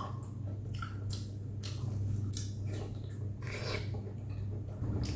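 A person chewing a mouthful of bún mắm rice noodles close to the microphone, with irregular short mouth clicks. A steady low hum runs underneath.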